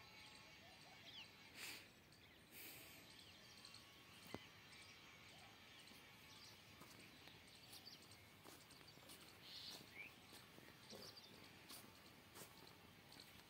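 Near silence: faint outdoor ambience with scattered, faint small-bird chirps and a few brief soft clicks and rustles.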